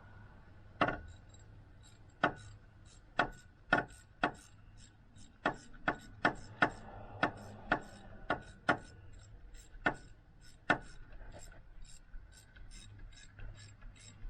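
A run of sharp knocks at irregular spacing, roughly one or two a second, turning faint after about eleven seconds.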